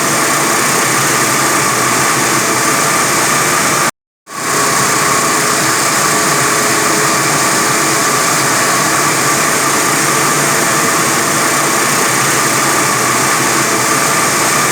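A 45 kW diamond wire saw running steadily while cutting reinforced concrete: a constant loud machine noise with a steady whine. The sound drops out completely for a moment about four seconds in, then resumes unchanged.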